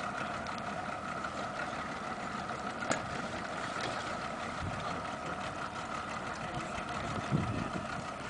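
Motorboat engine idling with a steady hum, and a single short click about three seconds in.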